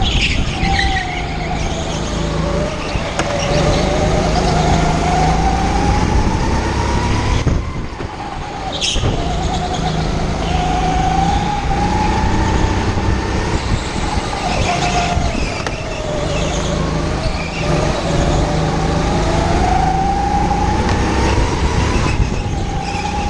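Indoor rental go-kart's motor running at racing pace, its pitch rising and falling several times as the kart speeds up on the straights and slows for the corners.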